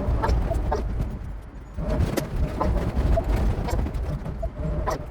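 Inside a large motorhome's cab while driving: a steady low engine and road rumble, with frequent short clicks and knocks about twice a second, unevenly spaced.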